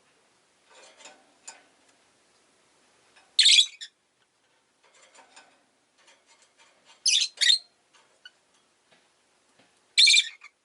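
Rosy-faced lovebird giving short, high-pitched calls: one about three seconds in, two close together around seven seconds, and one near the end, with fainter soft chatter in between.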